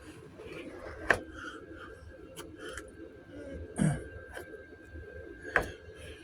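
Light handling noise from hand work on body filler, with two sharp clicks about a second in and near the end, and a short low throat-clearing sound in the middle.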